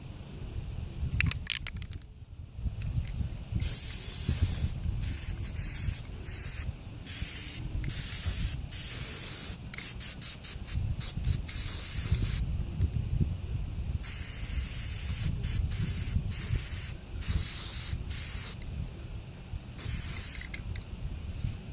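Aerosol spray paint can hissing in repeated bursts, some short puffs and some held for a couple of seconds, each cut off sharply, over a steady low rumble.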